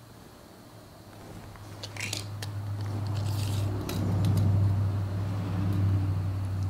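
Light metallic clicks and rattles of a tape measure and metal square being handled on a wooden board, over a low steady droning hum that builds up from about two seconds in and becomes the loudest sound.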